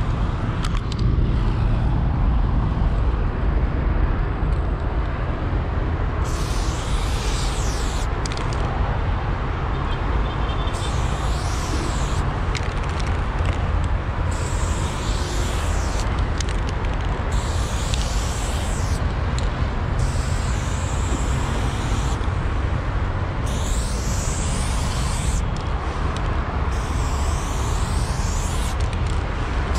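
Aerosol spray-paint can hissing in about seven bursts of one to three seconds each as lines are sprayed onto a wall, starting some six seconds in. Under it runs a steady low rumble.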